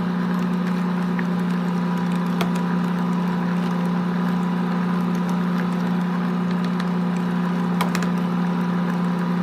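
Electric stand mixer's motor running steadily at one speed with a low hum while it creams softened butter with powdered sugar. Two light clicks come through, about two and a half and eight seconds in.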